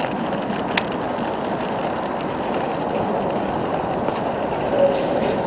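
An electric street tram approaching on its tracks: a steady running noise that grows a little louder toward the end, with a faint whine coming in near the end.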